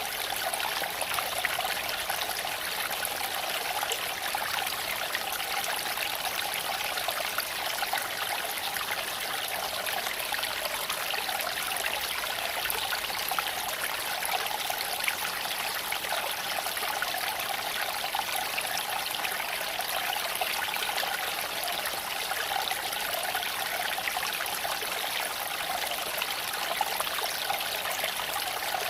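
Creek water flowing and splashing over stones in a steady, unbroken rush.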